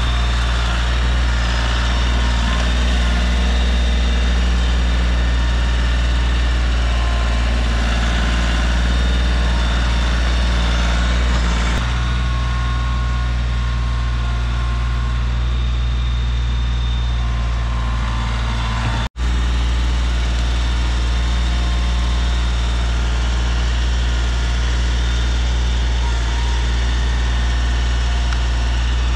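Tractor engine running steadily at constant speed, with a brief break where the sound cuts out about two-thirds of the way through.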